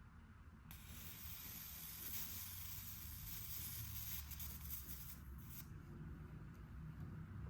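A soft, even hiss that starts just under a second in and cuts off about five and a half seconds in, over a low background hum.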